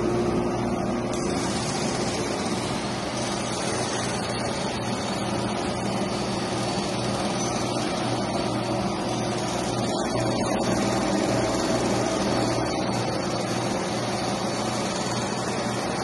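Kivertron LA-60T automatic parts washer running with its door latched shut: a steady hum from its pump and motor under an even rushing noise of water spraying inside the cabinet.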